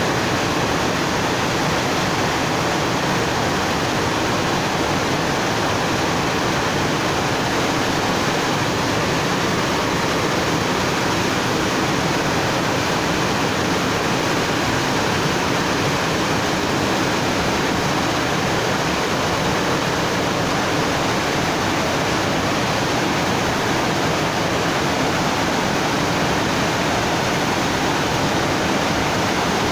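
Running water rushing steadily, an even and unbroken sound with no distinct splashes or changes.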